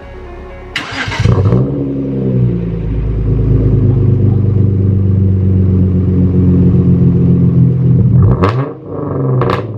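Hyundai Genesis Coupe 3.8 V6 with a straight-through ISR race exhaust and test pipes in place of the catalytic converters, starting up: a loud burst as it fires about a second in, then the revs fall from the start-up flare and settle into a steady, loud idle. A few short, sharp sounds come near the end.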